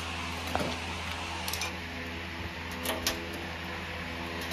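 A few light metallic clicks and taps of a screwdriver working on a gas stove's steel base and burner fittings, two of them close together partway through, over a steady low hum.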